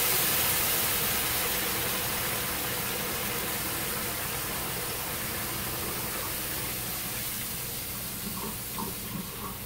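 Water boiling up and hissing in a hot frying pan of oil-toasted rice, just added to the pan, the hiss fading steadily as it settles.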